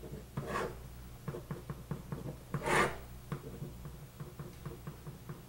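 Felt-tip marker writing and drawing ruled lines on paper: quiet scratches and small taps, with two longer strokes, the louder one about two and a half seconds in.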